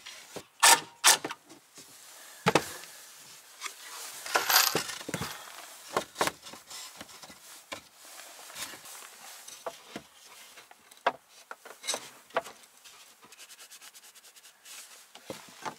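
Plywood shelf pieces being handled and fitted: scattered knocks and taps of wood on wood, two sharp ones in the first second and a half being the loudest. There is a scraping rub about four seconds in and a quick run of light ticks near the end.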